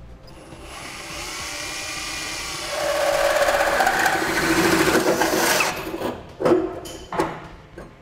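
Cordless drill spinning a 2¼-inch hole saw through the sheet-metal side of a pickup bed. A steady motor whine with the rasp of the saw teeth cutting gets louder about three seconds in and stops suddenly a little before six seconds, followed by a few sharp knocks.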